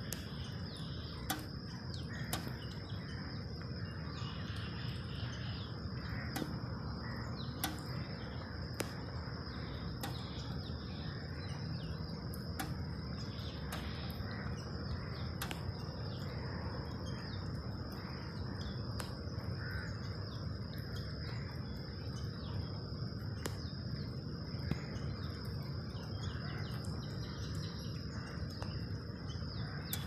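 Steady outdoor background noise with a constant high-pitched whine and scattered sharp clicks, with faint bird chirps.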